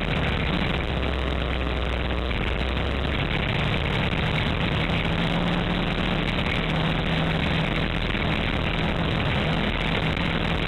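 Kawasaki Teryx4 800 side-by-side's V-twin engine running steadily as it drives along a dirt road, with a constant rush of wind and tyre noise, heard from inside the open cab.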